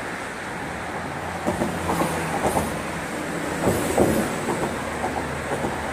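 Vehicle traffic rumbling past on a bridge, with a low engine hum and two spells of knocking and clattering, about a second and a half in and again about four seconds in.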